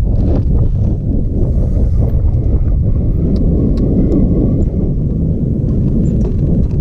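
Wind buffeting the microphone: a loud, steady low rumble with scattered light knocks.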